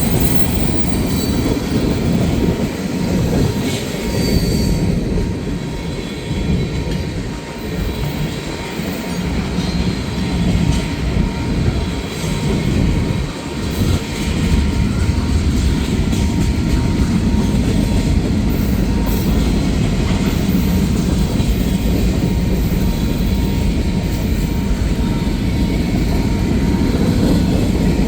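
Manifest freight train rolling past, its cars' steel wheels rumbling loudly and steadily on the rails with a faint thin squeal.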